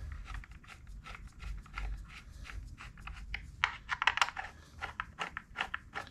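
Irregular light metal clicks and scrapes of a T27 Torx bit turning the air filter mounting bolts in by hand, with a cluster of sharper clicks about four seconds in.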